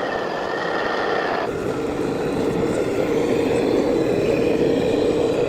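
Small electric motors of radio-controlled trucks or construction models whining steadily over a loud mechanical hum. The sound changes abruptly about a second and a half in to a denser, lower hum.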